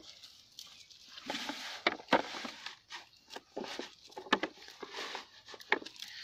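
Hands working at a plastic bucket sunk in the ground and the rice bait in it: rustling and scraping with several sharp light knocks, starting about a second in.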